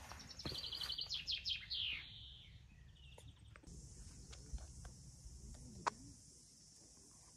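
Bird song in the open: a fast trill of rapidly repeated high, falling notes, then a shorter trill. About halfway through, a steady high hiss sets in, with a few faint clicks and one sharp tick near the end.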